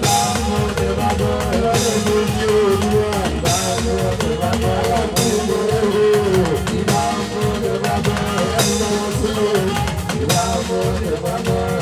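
Fuji band music playing loudly: dense drums and percussion under a repeating melodic line, with a cymbal crash about every second and three quarters.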